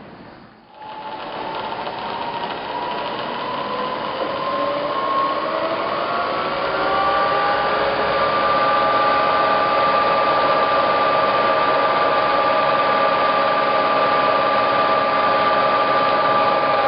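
Bridgeport milling head's 2 hp spindle motor starting about a second in and spinning up, its whine of several tones rising in pitch over a few seconds as the spindle-speed handwheel is turned up, then holding steady.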